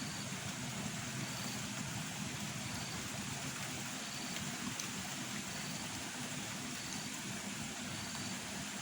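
Steady background hiss, with a faint short high-pitched chirp repeating about once a second.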